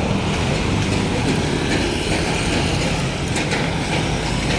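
Steady roadside traffic noise: vehicles running and idling on a busy city road, with a low engine hum.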